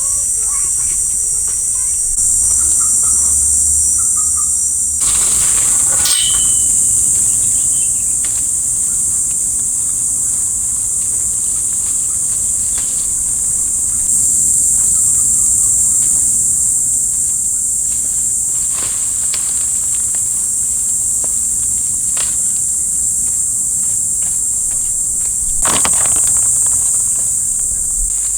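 Loud, steady, high-pitched chorus of insects shrilling, with a few brief rustling or knocking noises about five seconds in and again near the end.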